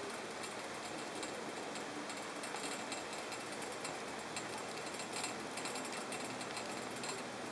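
Riding a moving chairlift: a steady hiss with many faint, irregular ticks and rustles.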